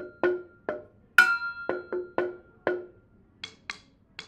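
Wooden drumsticks playing a steady rhythm on an empty tin can, with sharp taps about half a second apart. About a second in comes a louder strike with a ringing metal tone. Near the end come lighter, quicker taps on the carpeted floor.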